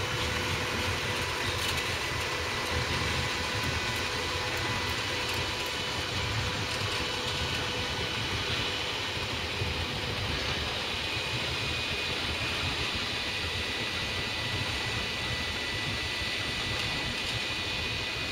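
Diesel engine of a road-rail Unimog running as it hauls three flat wagons along the track, with the wagons rolling on the rails. Steady throughout, easing off slightly as it moves away.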